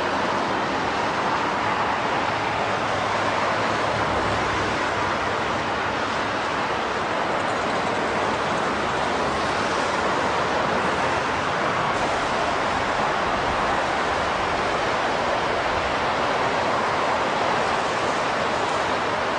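Steady roar of freeway traffic, an even rushing noise that holds constant with no distinct passes or pauses.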